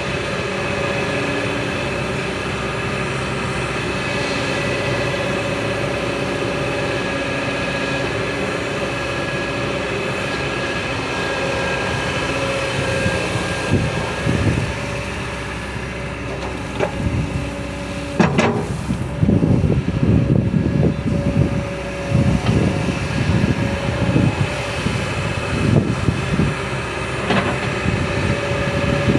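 Excavator engine running steadily. From about halfway there are irregular low rumbles and thumps, with a sharp click about two-thirds of the way through.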